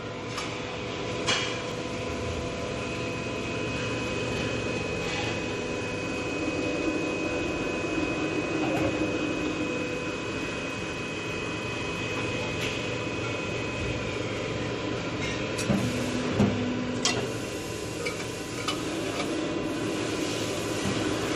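Square tube machine running steadily with a motor hum and whine, with sharp metal clanks and knocks as steel square tube is handled and fed through it, several of them close together about two-thirds of the way in.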